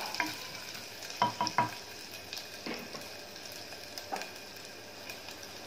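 Chopped garlic, ginger, curry leaves and mustard seeds sizzling steadily in hot oil in a pressure cooker as they are stirred with a wooden spatula, with a few sharp knocks of the spatula against the pot, three quick ones a little over a second in.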